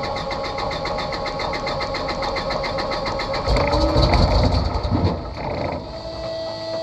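A hot aircraft piston engine being turned over by its starter, a fast even chugging of about ten beats a second. About three and a half seconds in it fires with a louder rumble for a second or so, and the cranking stops near the end, leaving a steady hum.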